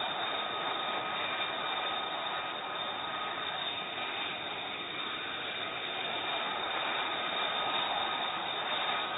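F-35B fighter's jet engine running steadily: a constant rush of noise with a high, steady whine laid over it.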